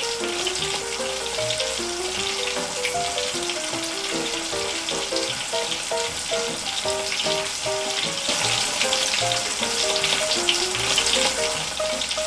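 Continuous crackling sizzle of battered sweet potato pieces deep-frying, over a light tune of short plinking notes.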